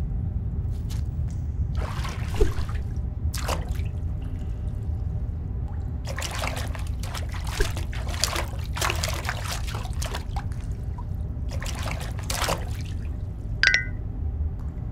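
Watery animation sound effects: bursts of trickling and sloshing over a steady low rumble, with a brief high squeak near the end.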